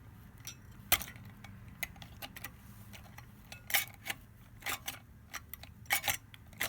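Irregular light metallic clicks and taps from a small indicator lock's lever and button being worked by hand.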